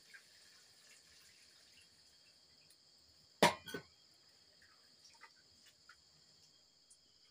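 Crickets chirring steadily in the background. About three and a half seconds in, a steel container is set down on the floor with a sharp clank, followed by a smaller knock.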